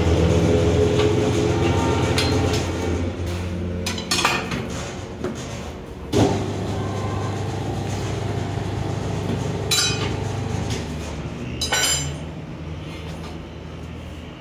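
Tyre-changer machine running with a steady hum as a car tyre is worked off a steel wheel rim. The hum is strongest in the first few seconds, and several sharp metal clinks and knocks come as the tyre irons and the rim strike each other, the loudest about six seconds in.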